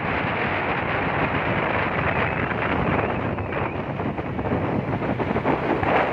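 Strong wind rushing over the microphone, a steady rumbling noise that dips and swells slightly.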